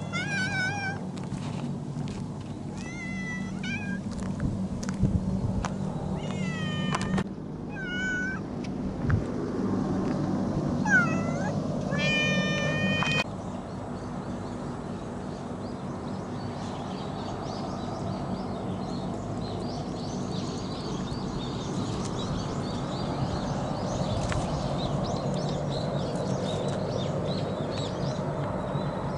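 Cats meowing, about six separate calls in roughly the first thirteen seconds. The last call is longer and held at a steady pitch. The meowing then stops, leaving faint outdoor background sound.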